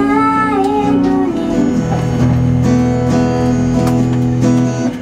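A woman singing live to her own strummed acoustic guitar; her voice carries a phrase for about the first second and a half, then the guitar chords ring on alone, strummed every half second or so, until the next line begins.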